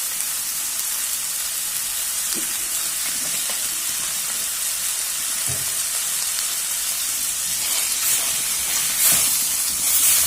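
Chicken pieces frying dry in oil in a pan, a steady sizzle now that the cooking water has boiled off, with a few knocks from a spatula stirring, more of them near the end.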